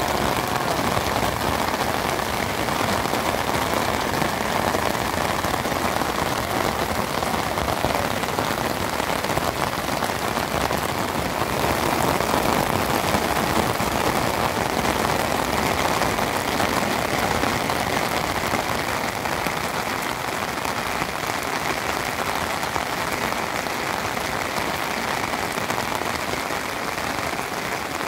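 Steady rain falling, an even patter of many drops.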